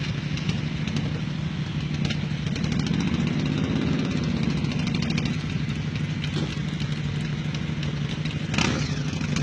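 Motorcycle engine idling steadily, the revs lifting a little and settling back about three to four seconds in. A short loud whoosh comes near the end.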